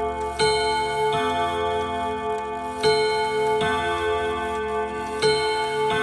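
ODO 24/10 French chiming clock sounding, its hammers striking chords on ten trough-shaped gong rods. The strikes come in three pairs, the two in each pair about three-quarters of a second apart and the pairs about two and a half seconds apart, each chord ringing on long.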